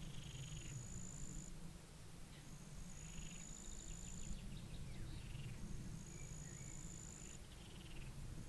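Pond-side wildlife ambience: a high, thin, steady call held about a second and a half and repeated roughly every two and a half seconds, between short chirping trills, over a steady low rumble of wind.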